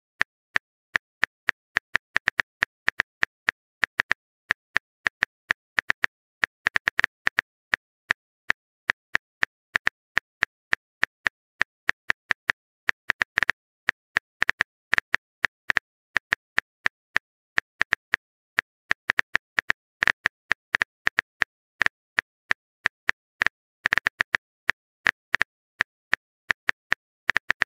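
Phone keyboard key-click sound effect ticking out typing, short sharp clicks at an uneven pace of about three a second with brief pauses.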